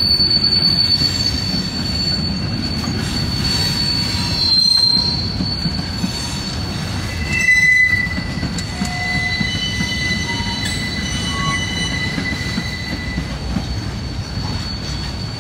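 Freight train's steel wheels squealing against the rail: a steady high-pitched squeal throughout, joined by a second, lower squeal from about seven seconds in, over the rumble of the rolling cars. The squeal comes from unlubricated track that, as the railfan says, needs a track greaser.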